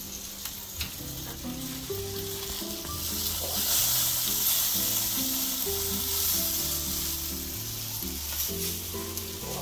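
Smoked leg of lamb sizzling on the hot grate of a ceramic kamado grill, the sizzle swelling a few seconds in as the lid is open and the meat is lifted off. Background music with held low notes plays underneath.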